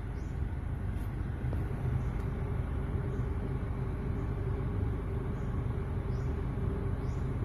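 A motor running steadily: a low, even rumble with a faint steady hum above it.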